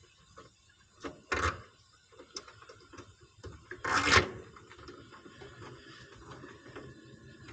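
Hands working on wiring inside an air conditioner's control compartment: scattered small clicks and two short rasping scrapes, the louder about four seconds in.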